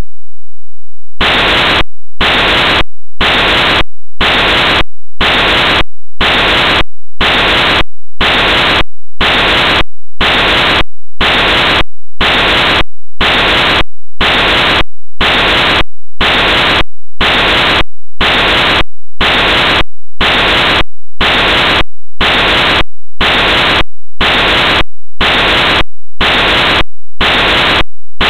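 Loud harsh static hiss switching on and off in an even rhythm, about one burst a second, after about a second of silence: electronic noise rather than any sound from the animals.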